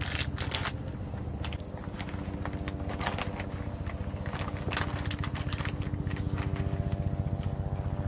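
Thin plastic food packaging crinkling and rustling in the hands as vacuum-sealed vegetables are unwrapped and laid out, in scattered crackles. Under it runs a steady low pulsing hum.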